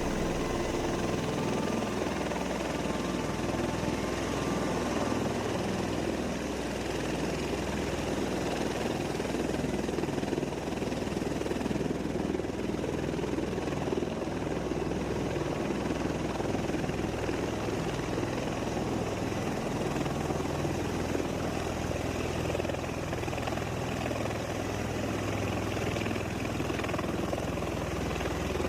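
V-22 Osprey tiltrotor running steadily, its proprotors and turboshaft engines making a continuous rotor thrum and turbine noise.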